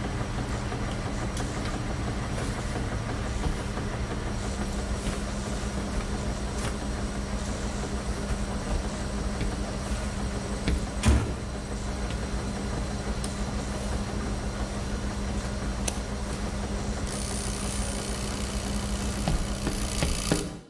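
Steady low rumble and hum of running laundromat washing machines, with a single thump about eleven seconds in. A hiss joins a few seconds before the end, then the sound cuts off suddenly.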